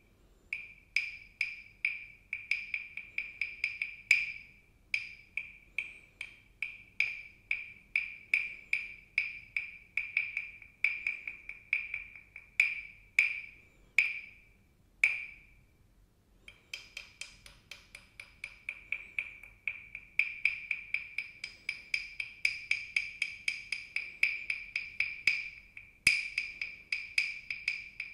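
Hollow carved wooden frog percussion toy (a frog guiro) played with its stick. Repeated scrapes along its ridged back, about two a second, give a ringing, rasping croak. A few single louder taps fall among them, and there is a short pause about fifteen seconds in.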